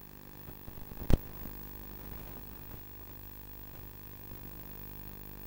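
A steady low hum made of evenly spaced tones, with one sharp knock about a second in.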